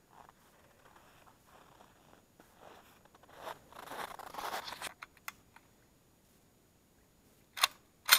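Rustling and crunching for about two seconds in the middle, then two sharp metallic clacks about half a second apart near the end as the Ruger Mini-30 is handled.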